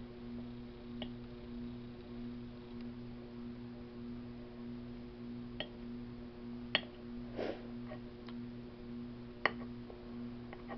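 A metal fork clicking and scraping against a plate while macaroni salad is scooped up: a few sharp clicks, two of them louder, and one short soft scrape. Under it runs a steady low hum.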